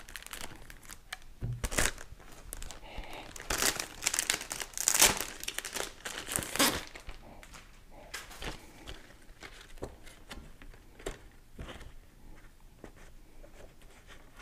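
Pinlock lens-insert packaging crinkling and rustling as it is opened and the lens and its paper instruction sheet are slid out. The loudest crinkles come in the first half, followed by softer rustling.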